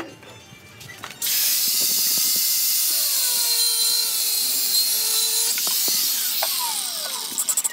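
Electric angle grinder with a cutoff disc slicing through a rusty steel rod clamped in a vise. A harsh, loud hiss of disc on metal cuts in about a second in, with faint tones under it sliding down in pitch, and it fades out near the end.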